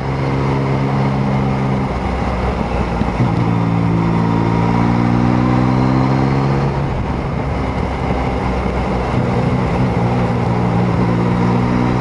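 Yamaha MT-09's inline three-cylinder engine running under way, a steady engine note over wind and wet-road noise. The note breaks off about two seconds in and comes back a second later, and changes again around seven seconds, as the throttle and gears change.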